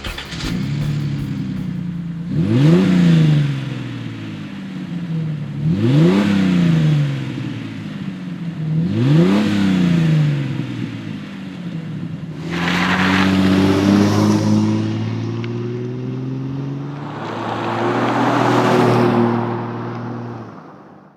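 Jeep Wrangler TJ's 4.0-litre inline-six idling through a Flowmaster Force II stainless cat-back exhaust, blipped three times in quick sharp revs, then held twice at higher revs for a few seconds each before dropping back.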